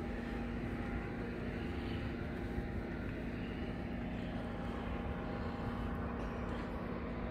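A steady mechanical hum, several held tones over a low rumble, unchanging throughout.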